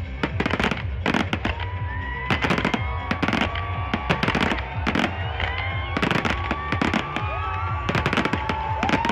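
Display fireworks bursting in a rapid, irregular series of sharp bangs, several close together at times, over a low rumble, with music playing underneath.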